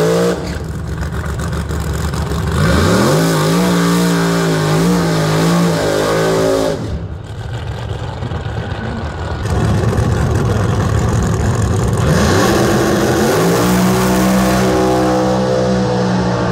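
Drag racing cars' engines at high revs: the pitch climbs about three seconds in and holds steady, the level dips suddenly about seven seconds in, then the pitch climbs again and holds steady for the last few seconds.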